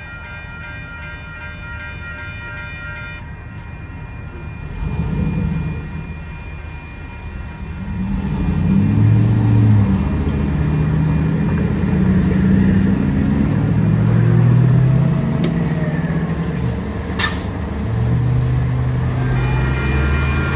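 Railroad crossing warning bell ringing steadily, stopping about three seconds in. Then vehicle engines pulling away, getting louder and rising and falling in pitch, including a city transit bus, with a short air-brake hiss from the bus near the end.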